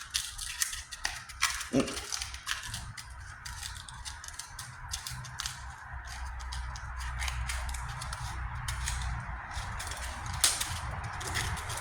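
220-grit sandpaper scrubbing over the repaired patch on a steel tailgate, a steady scratchy rasp broken by frequent short scrapes and ticks, smoothing out the sanding scratches left by a coarser grit.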